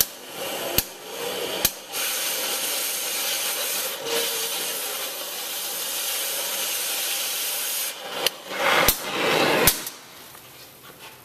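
Oxy-acetylene cutting torch cutting through a seized steel bearing. A few sharp cracks, then a steady loud hiss for about six seconds as the cutting-oxygen lever is held and the molten steel is blown away, then more cracks and hissing spurts before the sound drops away near the end.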